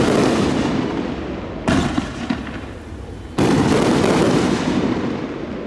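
Fireworks display: aerial shells bursting with loud booms, one sudden blast about a second and a half in with a couple of sharp pops after it, and a bigger one a little past halfway, each dying away in a long rolling rumble.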